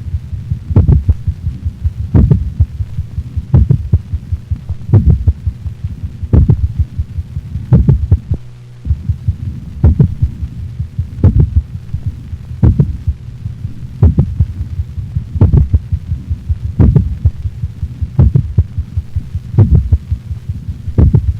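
Dog heart sounds from a stethoscope recording: clusters of short beats repeating about every one and a half seconds over a steady low hum.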